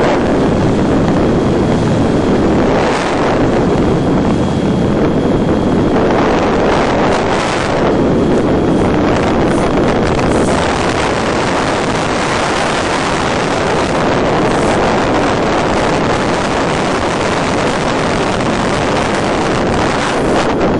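Wind buffeting the onboard microphone of a small FPV RC plane in flight, a loud steady rush that swells and eases every few seconds. The motor draws almost no current, so the plane is gliding and airflow is what is heard rather than the motor.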